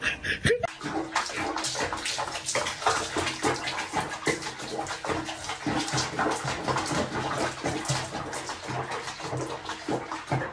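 Water splashing and sloshing in a basin of sudsy bathwater as a wet cat sits and moves in it, in quick irregular splashes.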